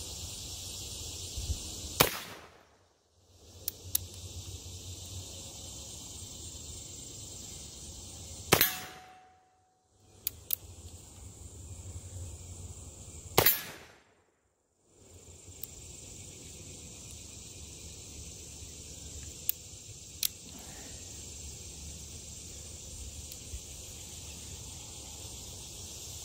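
Pietta reproduction LeMat black-powder revolver firing three single shots, about two seconds in, then some six seconds later, then five seconds after that. The sound cuts out for about a second after each shot, and there are a few faint clicks between shots.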